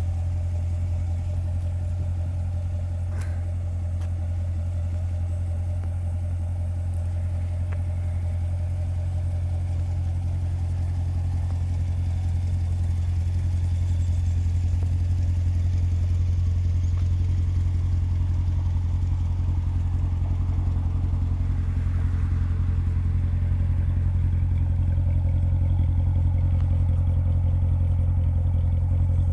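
2016 Corvette Stingray's 6.2-litre LT1 V8 idling steadily, getting a little louder about halfway through.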